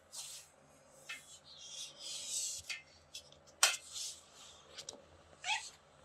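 Kitten giving one short, high chirp, her beeping call, near the end, among rustling handling noises with a sharp click a little past halfway that is the loudest sound.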